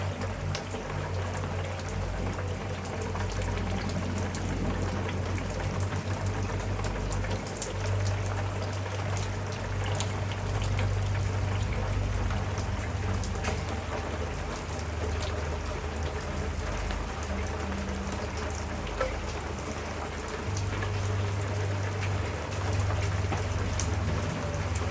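Steady heavy rain, with many individual drops ticking on a surface, over a constant low hum.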